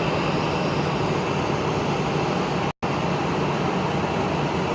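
Steady rushing background noise of airport and road traffic, with no single event standing out. It cuts out completely for an instant a little past halfway.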